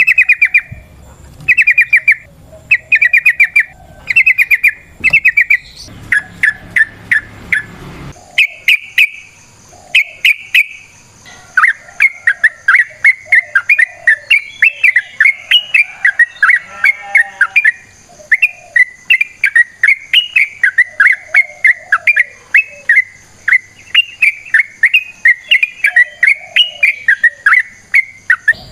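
Yellow-vented bulbul singing: short bursts of quick, bubbly notes about once a second at first, then from about twelve seconds in a long unbroken string of rapid phrases, the long 'ropel' song used as a lure to set other trucukan singing.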